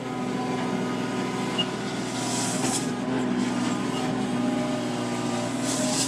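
Kubota KX018 mini excavator's diesel engine running steadily, heard from the operator's seat.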